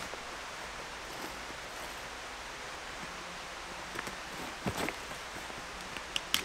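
A backpack being opened, giving a few light clicks and rustles from its buckles and fabric in the second half, over a steady hiss of woodland ambience.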